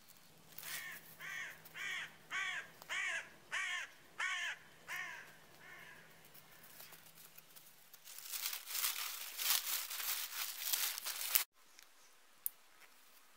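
A crow cawing about ten times in a quick series, about two calls a second, the last calls fading. Then a few seconds of crinkly rustling as gear is handled, which cuts off suddenly.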